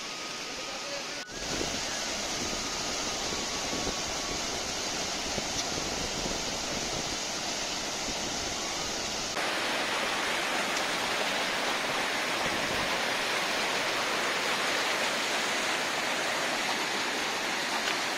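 Mountain waterfall cascading over boulders: a steady rush of water that steps louder about a second in and again about halfway through.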